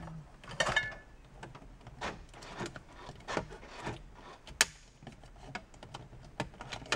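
Plastic car door trim being pried and handled as the door panel and armrest switch bezel come apart: irregular clicks, rubs and scrapes, with one sharp click about four and a half seconds in.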